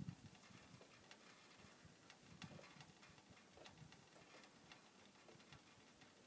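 Near silence outdoors, with faint, irregular clicks and ticks scattered through it.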